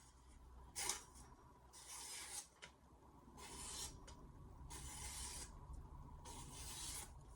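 A VG10 stainless steel knife blade drawn in five faint, short rasping strokes, about one every second and a half.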